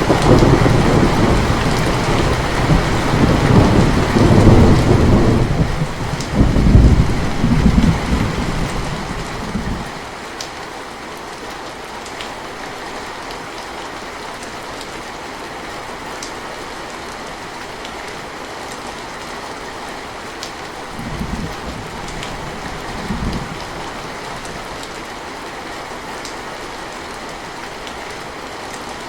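Steady rain falling, with a long roll of thunder that swells twice and dies away about ten seconds in. Two short, fainter rumbles of thunder follow a little past the twenty-second mark.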